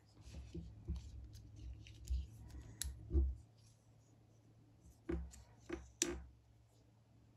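Hands handling a Buck 133 folding pocketknife: rustling and scraping, then sharp metallic clicks as the blade is snapped shut about three seconds in and opened again about five to six seconds in, the sharpest click near the end.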